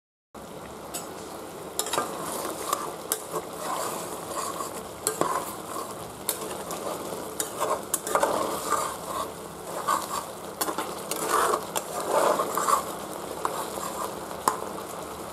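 Chicken in a thin yogurt gravy sizzling and bubbling in a metal kadai while a flat spatula stirs and turns the pieces. The spatula scrapes and clicks sharply against the pan many times, most busily in the second half.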